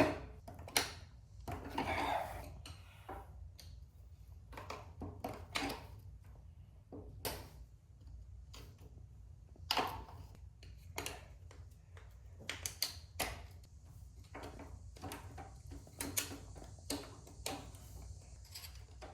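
Irregular metallic clicks, clinks and knocks of hand tools and loose parts being handled while a motorcycle's rear sprocket hub is taken apart, a few sharp ones standing out now and then.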